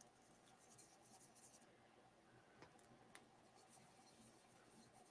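Near silence with faint scratching: a lead test swab rubbed on the scuffed paint of a cast iron kettle, with two faint clicks about half a second apart near the middle.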